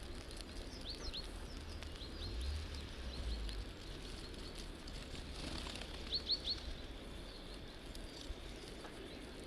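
Tits calling: short, high chirps, a few scattered through the first two seconds, then a quick run of three about six seconds in, over a steady low rumble.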